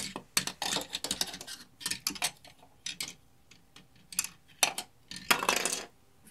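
Plastic toy horse figurines clicking and clattering on a wooden dresser top as they are picked up and moved by hand. Rubbing and rustling handling noise mixes in with the clicks.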